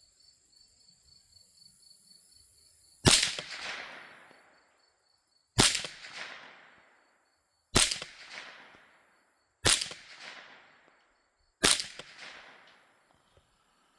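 Five shots from a Savage A22 semi-automatic .22 LR rifle, about two seconds apart, each a sharp crack followed by a short echo dying away.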